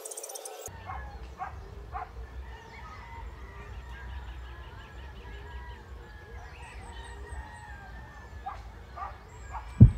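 Birds calling and chirping, short scattered calls with a few high chirps, over a steady low rumble; one loud low thump at the very end.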